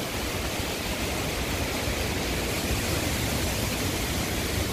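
Hurricane-force wind blowing steadily, a dense even hiss with a low rumble of wind on the microphone.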